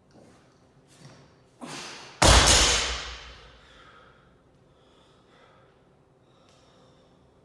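A loaded barbell dropped onto the lifting platform: one loud crash about two seconds in that rings off over about a second, just after a short sharp exhale.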